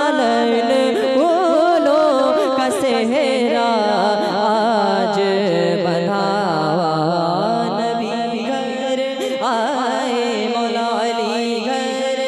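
A male voice sings a naat into a microphone in long, ornamented notes without clear words, over a steady held low note.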